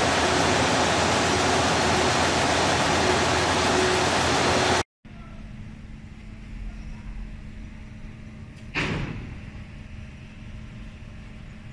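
A loud, steady rushing noise that cuts off suddenly about five seconds in. After it comes a much quieter steady low room hum, with a single sharp knock about nine seconds in.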